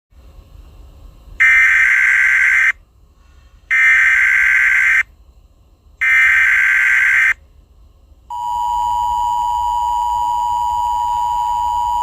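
Emergency Alert System header: three bursts of high digital data tones, each just over a second long, about a second apart. About eight seconds in, the steady two-tone EAS attention signal starts and holds.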